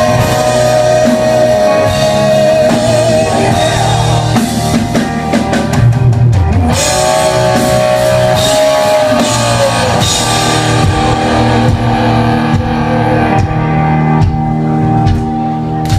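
Rock band playing live in an instrumental break: a lead electric guitar holds long, bending notes over drums and rhythm guitar.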